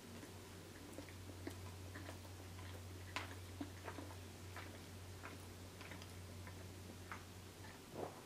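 Close-miked chewing of blackened chicken: irregular wet mouth clicks and pops, with a faint steady low hum underneath.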